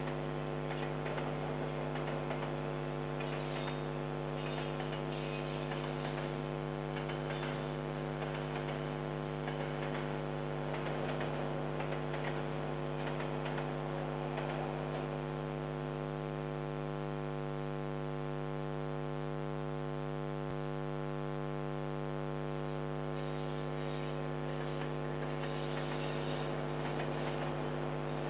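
Steady electrical mains hum with a stack of buzzing overtones, picked up by a security camera's audio circuit. A faint hiss swells and fades over it now and then.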